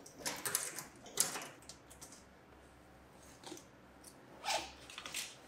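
A few short clicks and rustles of something being handled: a cluster in the first second, a sharp click a little over a second in, and another cluster about four and a half seconds in.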